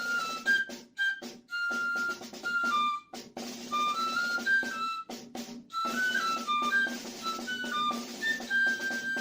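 Background music: a quick flute-like melody of short stepping notes over a light drum beat and a steady low note.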